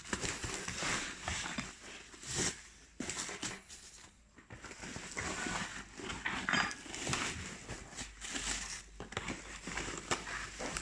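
Bubble-foam packaging being handled and unwrapped, an irregular crinkling and rustling with small crackles.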